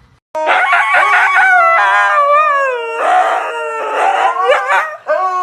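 A dog howling back in a run of long, wavering calls that slide up and down in pitch, with a few rougher, raspier stretches between them.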